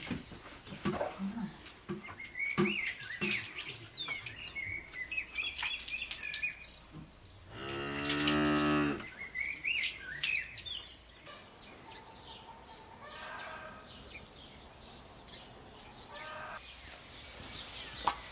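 A cow mooing once, a single long low call of nearly two seconds about halfway through, with birds chirping around it.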